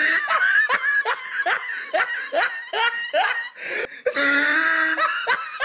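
A person laughing: a quick string of short, pitched laugh pulses, about three a second, with a longer held vocal stretch a little after four seconds in.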